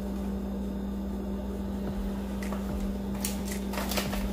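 Metal spoon tapping and clinking against a drinking glass as powder is tipped in, a quick run of clicks in the last second or so, over a steady low hum.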